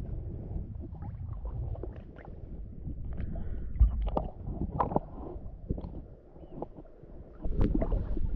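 Water lapping and sloshing against a camera held at the water's surface, with small splashes and a low gurgling rumble. It gets louder about three-quarters of the way in, as the camera dips under the water.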